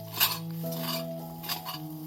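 Background music of soft held notes, with several light clinks or clicks over it.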